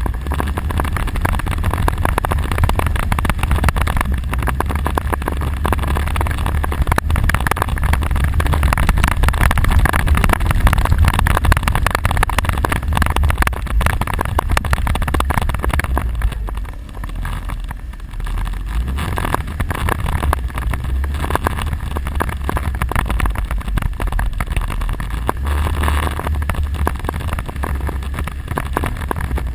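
ATV quad engine running under way, with wind buffeting the microphone. The engine eases off briefly a little past halfway, then picks up again.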